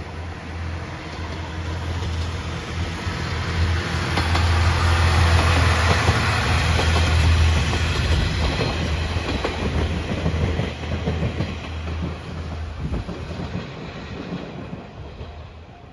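Anpanman Torokko train, a diesel railcar hauling an open-air trolley car, passing close by: a low, steady diesel engine hum with wheels clicking over rail joints. It grows louder to a peak about halfway through, then fades as the train moves away.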